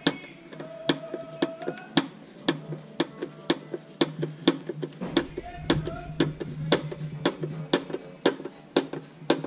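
Background music from a radio, with a steady drum beat and a held melody.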